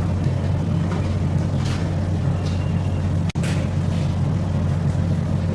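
A steady low motor drone with a brief dropout about three seconds in.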